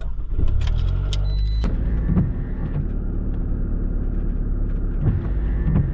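Car engine starting and then running steadily as a low rumble, with a few light clicks over it.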